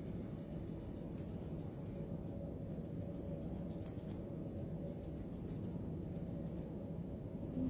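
Dog-grooming scissors snipping through a Maltipoo's facial hair: a quick run of crisp snips that grows sparser after about two seconds, over a steady low hum.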